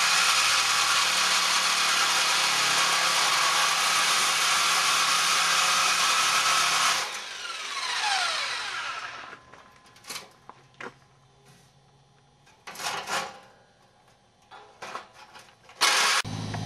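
Electric jigsaw with a metal-cutting blade cutting thin steel sheet, running steadily for about seven seconds, then switched off with a falling whine as the motor winds down. A few short clicks and knocks follow, and a low hum starts near the end.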